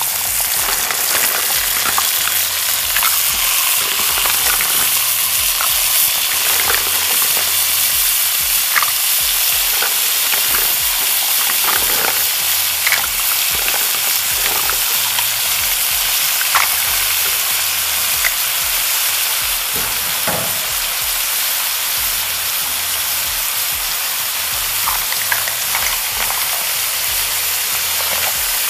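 Mussels in their shells sizzling in a hot pan of sautéed ginger, onion and tomato: a steady sizzle with scattered pops and clicks.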